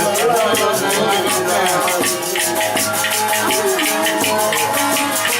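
Turkish folk band playing an instrumental passage between sung lines: a winding melody over a fast, steady shaker-like percussion beat of about four strokes a second.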